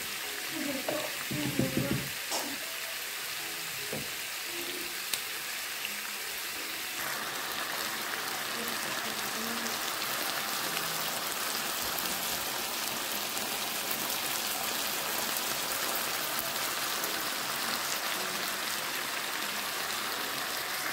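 Chicken pieces, bell peppers, onion and green chili sizzling as they fry in a non-stick pan: a steady hiss that grows a little louder about a third of the way in.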